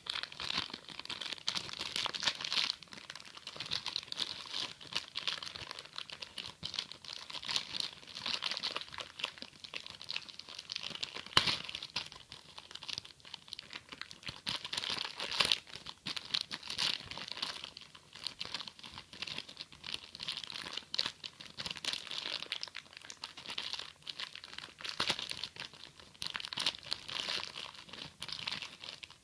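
Clear plastic wrapper around a USB cable being crinkled and torn open by hand, an irregular crackling that goes on throughout, with a couple of sharper snaps.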